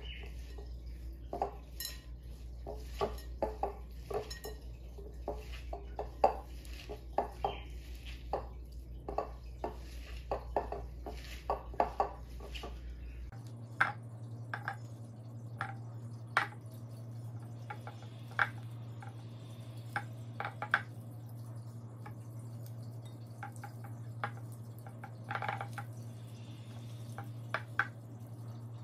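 Hands mixing chopped onion, green chili, coriander and garlic, then mashing boiled potatoes, in a glass mixing bowl: irregular light knocks and clicks against the glass. A steady low hum runs underneath and changes pitch about halfway through.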